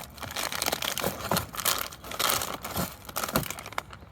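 Packaging crinkling and crackling as new tie rod parts are unwrapped, with a little tearing: a run of irregular rustles and sharp crackles.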